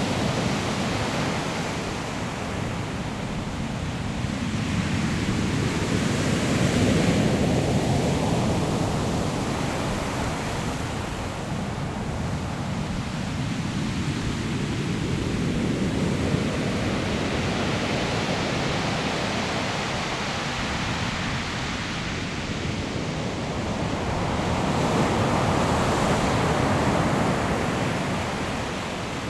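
Sea waves breaking on a pebble shore, a continuous wash of surf that swells and fades in slow surges about every nine seconds.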